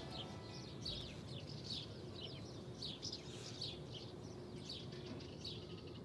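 Common house martins twittering: faint, short, high chirps that fall in pitch, about two a second.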